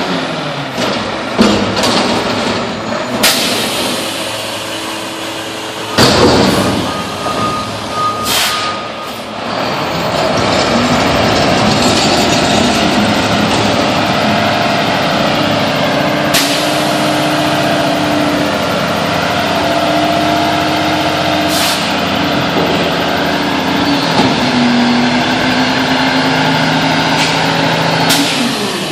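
Mack front-loading garbage truck at work: metal bangs and clanks as the dumpster is shaken out over the hopper, with one loud bang about six seconds in. The diesel engine then runs steadily and rises in pitch as the truck pulls forward, with a few short air-brake hisses.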